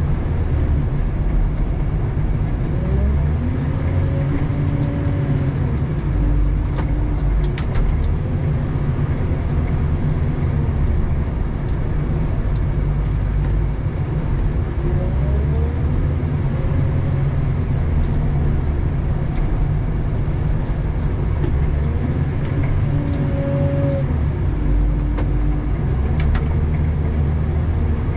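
Doosan DL250 wheel loader's diesel engine running steadily, heard from inside the cab. A whine rises in pitch, holds and falls back again every several seconds as the loader revs up and eases off through its plowing passes. A few faint clicks are heard.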